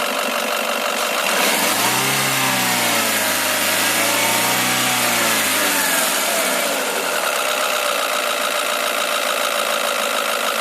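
Renault Scénic running, with an odd droning moan of several pitches. The moan sets in about a second and a half in, swells up and down in pitch a couple of times, and dies away about halfway through.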